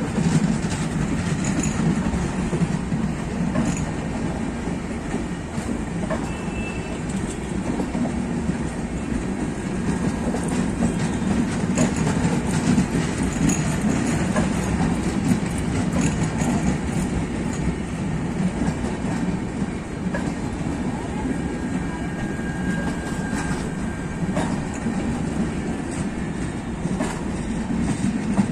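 Passenger coaches of an express train rolling past close by: a steady rumble of steel wheels on the rails, with frequent light clicks as the wheels pass over the rail joints.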